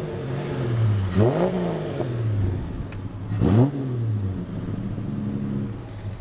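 Ford XF Falcon's engine idling and revved twice, about a second in and again about three and a half seconds in. Each time the note rises and settles back to idle.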